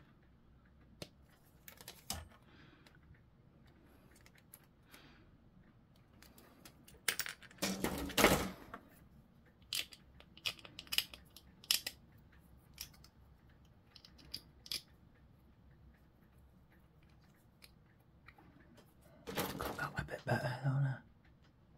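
Sprue cutters snipping grey plastic miniature parts off the frame and cleaning them up: scattered sharp snips and clicks, with two louder bursts of clattering plastic handling, one about seven seconds in and one near the end.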